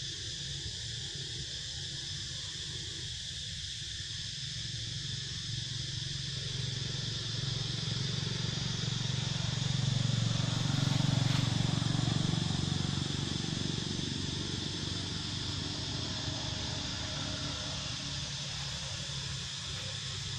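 Outdoor ambience: a steady, high-pitched insect chorus, with a low rumble that swells and fades about ten seconds in.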